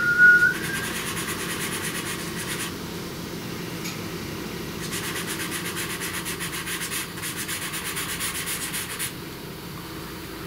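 Pastel pencil scratching across the drawing surface in quick, evenly repeated short strokes, in spells of about two seconds with pauses between. A short rising whistle is heard right at the start and is the loudest sound.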